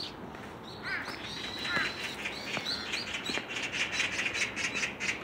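Birds chirping: a few short downslurred calls, then a fast run of repeated chirps in the second half.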